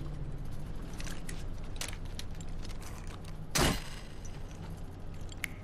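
Low, steady rumble of a truck engine heard from inside the cab, with scattered small metallic clicks and one louder metal clack about three and a half seconds in.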